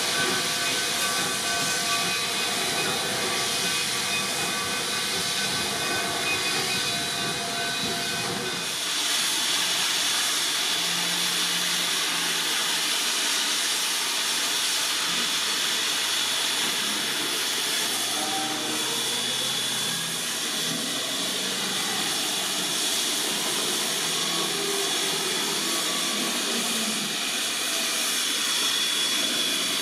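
Narrow-gauge coal-fired steam locomotive hissing steadily, a continuous rush of escaping steam. Faint steady tones sit over it for the first eight seconds or so, then the sound changes and loses its low end.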